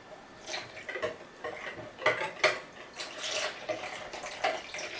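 Wire whisk beating egg yolks and milk in a plastic bowl, its wires clicking and scraping against the bowl in quick, irregular strokes.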